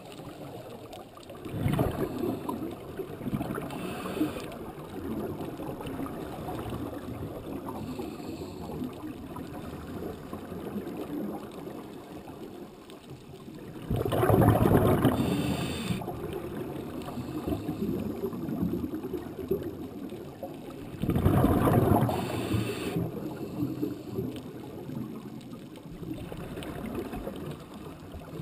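Underwater sound on a scuba dive: a diver's regulator releasing exhaled air as loud rushes of bubbles, three times, each lasting a couple of seconds, over a steady background of water noise.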